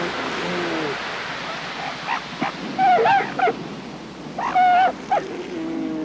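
Northern elephant seal cow and pup calling back and forth over the wash of surf: a lower, drawn-out call near the start and again near the end, and high, wavering yelps twice in the middle.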